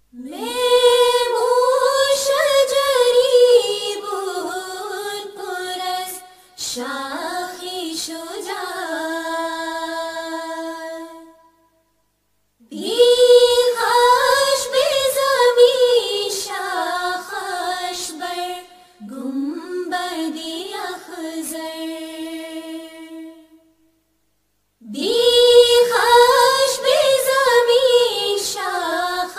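A single high voice chanting a Persian (Farsi) qasida unaccompanied. It sings five long, drawn-out phrases, each starting high and falling in pitch toward its end, with short pauses between them.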